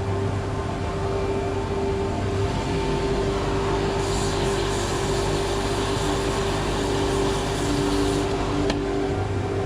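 An electric woodworking machine running steadily with a constant motor hum, and a louder hiss of cutting from about four to eight seconds in.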